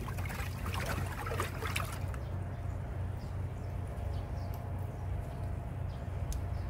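A hand sloshing fruit and vegetable pieces down into soy-sauce liquid in a large aluminium pot, splashing and dribbling for about two seconds. It then settles to a few faint drips and clicks over a low steady rumble.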